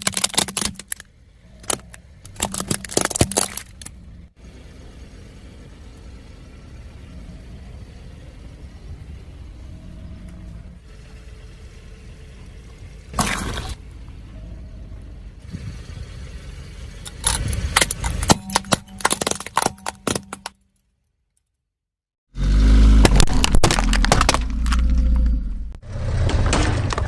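A car's tyre rolling over brittle objects and crushing them: several clusters of cracking and breaking, with the car running low in between. About two-thirds of the way through the sound drops out briefly, then heavier crunching over a louder low rumble follows.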